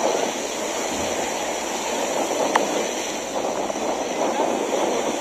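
Steady beach ambience: an even wash of surf and wind noise, with one short sharp click about two and a half seconds in.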